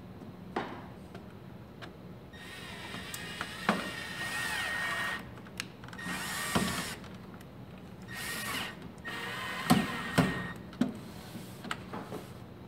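Cordless drill/driver running in four short bursts with a steady whine, the first about three seconds long, as a screw is driven through aluminum fascia to hold it temporarily. Sharp knocks and clicks fall between the bursts.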